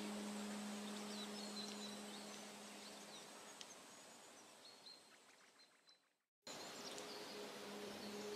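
Background new-age music: a steady singing-bowl-like drone with small chirps above it, fading out, breaking off to silence for a moment about six seconds in, then starting again.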